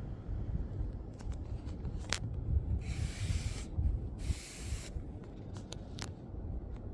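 Hands handling the diecast model and its packaging: two short scraping rubs about three and four and a half seconds in, with a few light clicks, over a low steady rumble.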